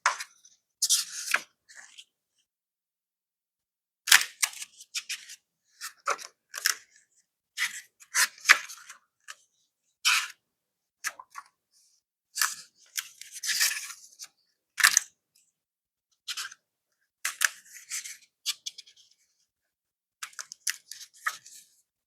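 Packaging being handled and torn open: short, irregular bursts of crinkling and tearing, separated by brief silent gaps.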